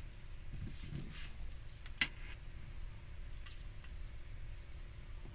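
Faint handling noises: a plastic glue pen being turned in the hands and paper strips shifting on a cutting mat, with a single sharp click about two seconds in and a few lighter ticks later.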